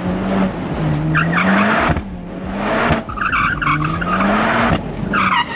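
Tyres squealing in three bursts as a Mercedes is held in a drift. The engine revs climb during each slide and drop back between them.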